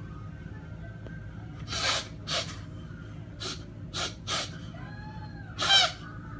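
A young man sobbing: about half a dozen sharp gasping, sniffling breaths, with a high wavering whimper near the end that breaks into the loudest gasp.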